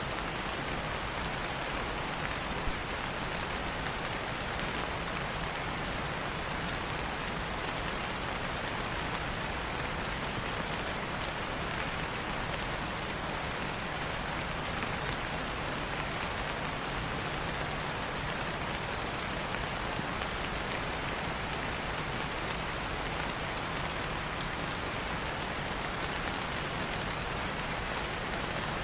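Steady rain falling on leaves, a constant even hiss with scattered faint drop ticks.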